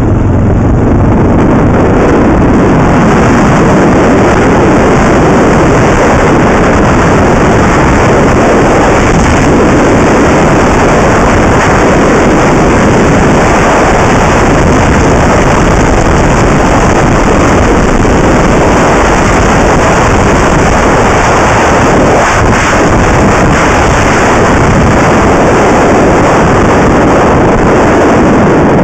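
Loud, steady wind rush on the onboard camera's microphone of a motorcycle riding at road speed, with the Husqvarna SMS 630's single-cylinder engine mixed in beneath it.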